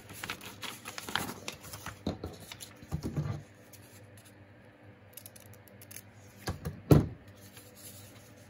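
Paper and craft supplies being handled on a worktable: rustling and light clicks over the first few seconds, then a short quieter stretch and a sharp knock about seven seconds in, the loudest sound.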